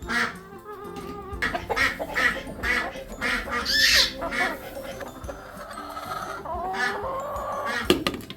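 Hens clucking in a run of short calls, with one loud squawk about four seconds in and a longer drawn-out call near the end.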